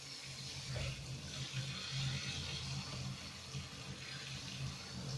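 Handheld shower head spraying a steady stream of water over a wet cat's fur and into a bathtub, rinsing it.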